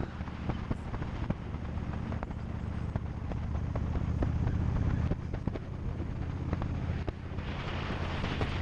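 Yamaha Drag Star 1100's V-twin engine running steadily under way, with a strong low pitched drone and scattered small clicks on the microphone. A rush of higher noise builds near the end.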